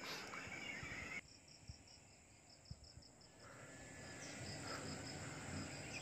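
Faint insect chirping: a high, evenly pulsing trill of about seven pulses a second over a low background hiss, which drops away for a couple of seconds about a second in.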